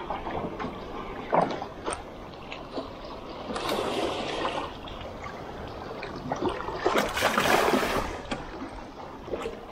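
Wind-driven chop lapping and splashing against the hull of a small Gheenoe skiff, swelling louder twice, about four and seven seconds in, with a few small knocks.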